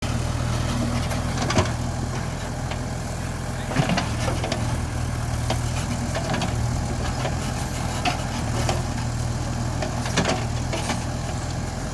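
JCB backhoe loader's diesel engine running steadily at a low, even throttle, with a few sharp knocks from the machine about one and a half, four and ten seconds in.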